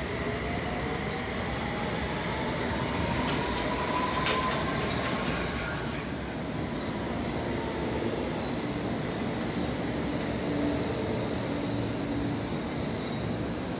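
London Underground S Stock train pulling out of the station, its traction motors giving a rising whine as it gathers speed, with a run of wheel clicks over the rail joints about four seconds in. Later a second train runs in with a lower, steadier hum.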